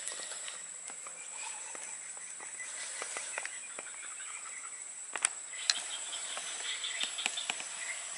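Tropical forest ambience: a steady high-pitched insect drone with scattered bird chirps, and sharp clicks and snaps throughout, the loudest two about five seconds in.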